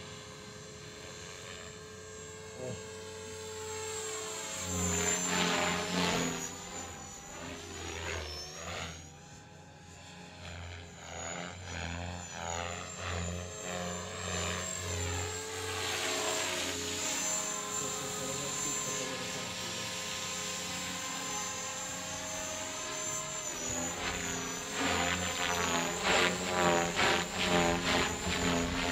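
Radio-controlled model helicopter flying manoeuvres: the rotor blades chop loudly in surges while a thin high whine runs steadily, and the pitch rises and falls as the helicopter swoops about.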